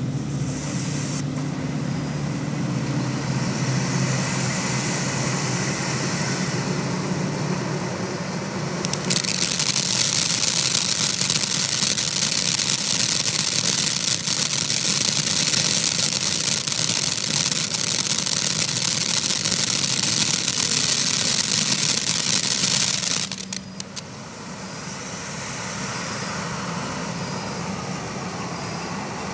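Black Cat Iron Maiden fireworks fountain spraying sparks with a steady hissing rush. It grows louder and brighter about nine seconds in, then falls back to a softer hiss about two-thirds of the way through.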